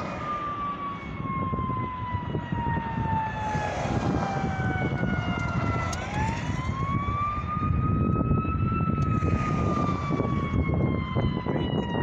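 Fire engine siren wailing: a long falling tone that swings back up about six seconds in and then falls again. A low rumble of traffic runs under it.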